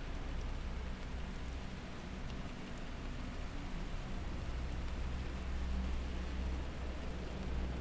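Rain ambience over a steady low drone of held tones, as in a binaural-beats meditation track.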